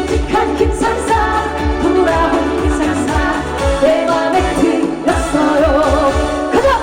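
A woman singing a Korean trot-style pop song live over amplified accompaniment with a steady kick-drum beat; near the end her voice slides quickly upward.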